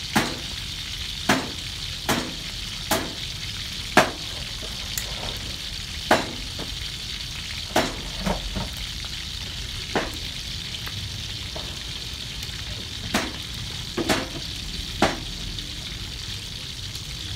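Whole fish deep-frying in hot oil in a metal wok: a steady sizzle, broken every second or two by sharp pops of spitting oil.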